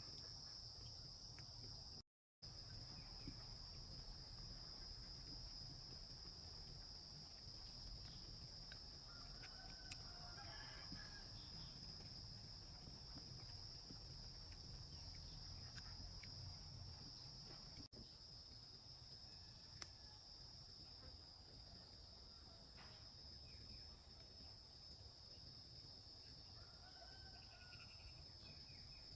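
Faint, steady high-pitched insect chorus of crickets trilling, with a few brief faint calls about ten seconds in and again near the end.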